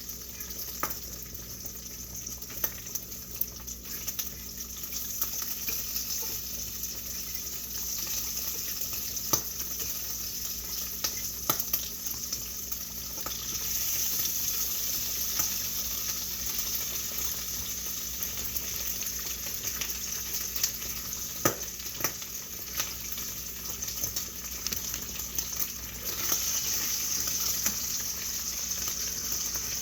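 Food frying in a pan with a steady sizzle, with scattered sharp clicks, and the sizzle growing louder about halfway through and again near the end.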